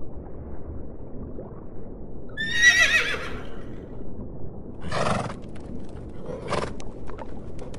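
Horse whinnying once about two and a half seconds in, a high wavering call, followed by two short snorts. A few light clicks come near the end.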